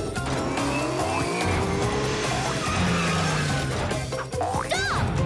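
Cartoon sound effects of small cars racing: engines whining and tyres squealing as they skid, over upbeat background music.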